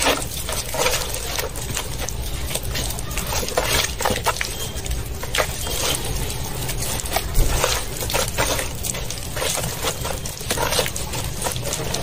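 A hand kneading and squeezing thick wet paste in a plastic basin: a busy run of wet squelches and sticky clicks as fingers push through and pull out of the mixture.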